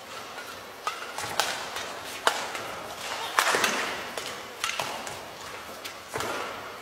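Badminton rackets striking a shuttlecock in a fast doubles rally: a series of sharp hits, about one a second, six in all.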